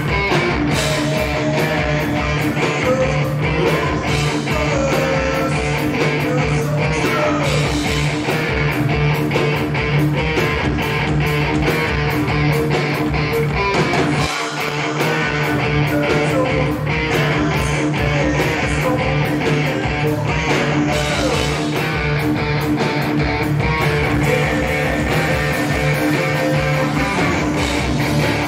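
A rock band playing live: electric guitar, electric bass and a drum kit, with a steady cymbal beat. The low end drops out for a moment about halfway through.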